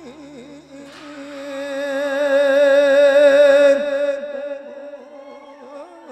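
A Thai monk's voice chanting a sermon in the melodic Isan lae style, holding a long note with a strong, even vibrato. It swells to its loudest about three seconds in, then eases off.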